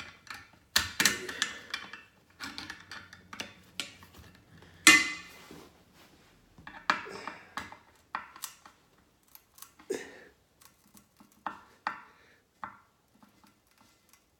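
Pliers tightening a brass toilet tank bolt: irregular metallic clicks, clinks and short scrapes with pauses between them, the loudest clank about five seconds in.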